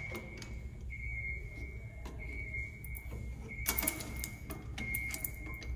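Metal clinks and rattles as chain-type mole grips are worked round a brass cable gland being tightened, with a sharp cluster of clicks about four seconds in. A steady high beep repeats about once a second throughout.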